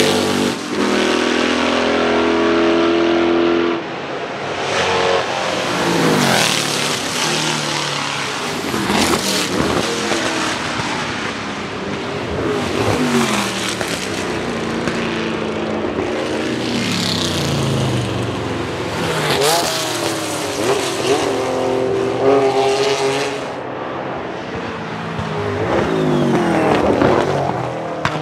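Racing Chevrolet V8 of a Lola T70 Mk3 coupé driven hard on track, its revs climbing repeatedly through the gears and dropping on lifts and downshifts, growing loud as the car passes by several times.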